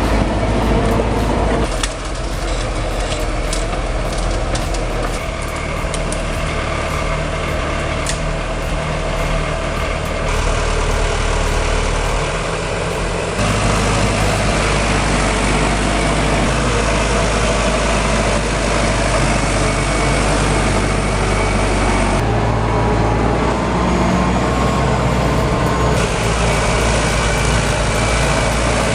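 Tractor's diesel engine running steadily while pulling a log trailer, in several spliced clips whose sound changes abruptly about 2, 13, 22 and 26 seconds in.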